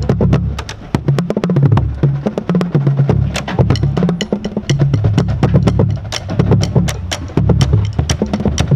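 A line of five tuned Pearl marching bass drums on stands playing a fast split-part bassline exercise, the notes passed along the line so the low pitch steps up and down. Sharp wooden clicks run along with the drum strokes.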